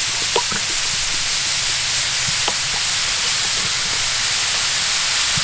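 Diced carrots and green beans frying in a large wok, a steady sizzling hiss with a few faint ticks.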